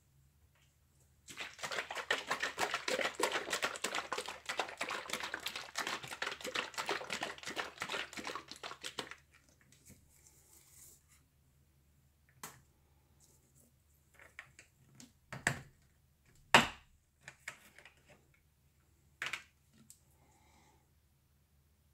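A fast, dense run of light clicking taps for about eight seconds, then a handful of separate clicks and knocks, the sharpest one late on.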